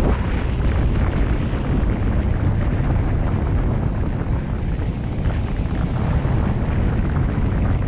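Steady road noise of a car driving on an asphalt road: a low rumble of tyres, engine and wind picked up by a vehicle-mounted action camera.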